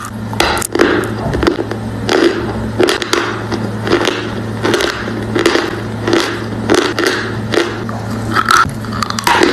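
Dry, crumbly edible chalk being bitten and chewed close to the microphone: a steady run of crunches, about three every two seconds, over a low steady hum.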